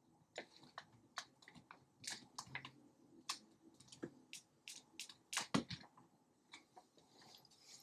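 Faint, scattered clicks and crackles of Nanoleaf triangle light panels being handled during mounting.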